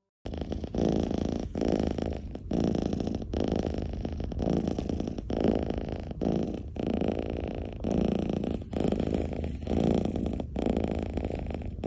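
Long-haired ginger cat purring in steady rhythmic waves, one phase per breath with brief dips between, while its face is rubbed with a finger.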